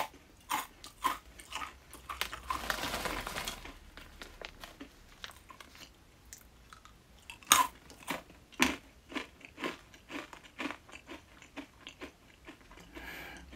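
Close-up chewing of crunchy Denroku coated bean snacks: sharp bites and crunches at irregular intervals, with a denser run of crunching about two and a half to three and a half seconds in and the loudest crunch past the middle.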